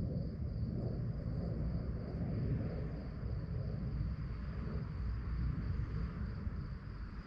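Crickets chirping in a steady, unbroken high trill, over a louder low rumble of background noise.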